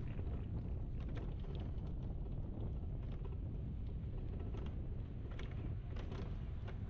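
Bicycle tyres rolling over stone paving, with wind on the microphone: a steady low rumble, with light clicks now and then.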